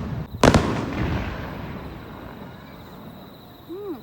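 A single aerial firework shell bursting with a loud boom about half a second in, its rumble echoing and dying away over the next few seconds. A short rising-and-falling tone sounds near the end.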